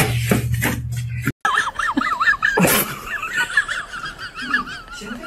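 A loud, noisy rushing sound over a low hum cuts off about a second and a half in. Then a dog whines in a high, wavering tone that wobbles quickly up and down and keeps going to the end.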